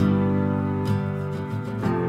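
Gentle acoustic guitar music, with a new chord plucked about once a second.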